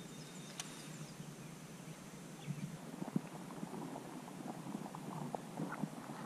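Faint water and boat ambience: a low, steady hiss with scattered soft knocks and thumps, and one sharp click about half a second in.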